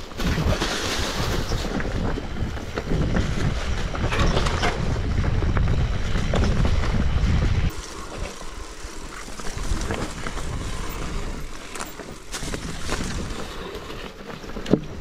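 Mountain bike riding over rough trail: low wind rumble on the microphone with hiss and rattling, heavy for the first seven or eight seconds and then dropping off abruptly to lighter rattling and scattered clicks, with one sharp knock near the end.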